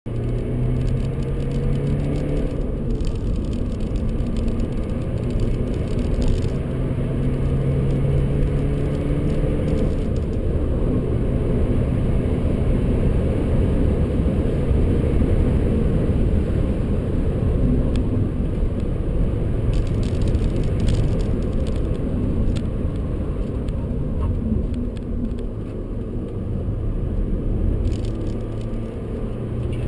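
Inside the cabin of a BMW 125d at track speed: its four-cylinder turbodiesel drones, rising and falling in pitch with the revs, over heavy tyre and road rumble. The sound eases somewhat near the end as the car slows.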